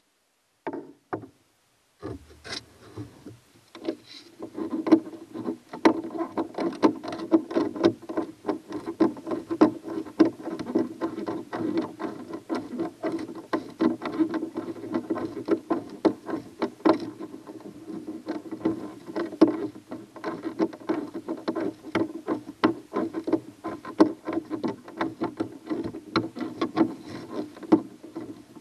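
Socket ratchet clicking in quick, irregular strokes as a nut is worked onto a through-hull mounting bolt for a bow-mount trolling motor. The clicking starts about two seconds in.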